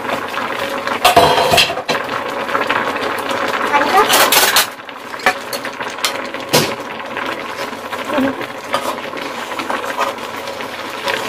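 A metal spoon clinking and scraping in a pot of simmering tteokbokki as it is stirred, over a steady hiss of bubbling sauce.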